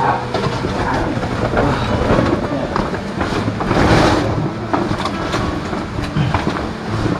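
Irregular scraping, rubbing and knocking of a body and clothing against rock as a man squeezes and crawls through a narrow crevice between boulders, loudest about four seconds in.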